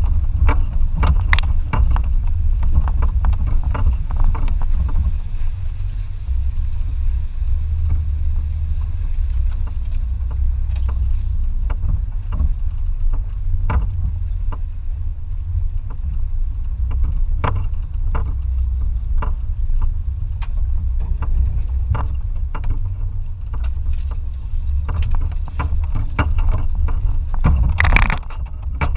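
2004 Toyota Tacoma TRD Off-Road pickup driving, with a steady deep rumble and scattered knocks and rattles throughout.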